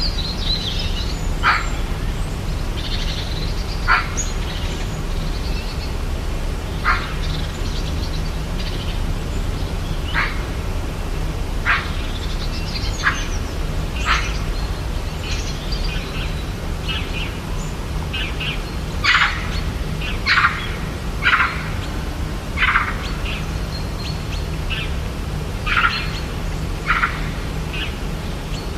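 Rainforest ambience: birds calling and chirping, a short call every few seconds, with a run of louder calls about two-thirds of the way in. Underneath is a steady low hum.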